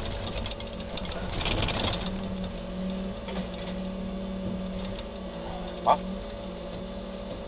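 Scrap-handling crane running under load, a steady hum from its engine and hydraulics as the orange-peel grapple lifts a pressed car and swings it over. Metal rattles and clatters in the first two seconds as the grapple takes hold, and a short sharp squeal comes about six seconds in.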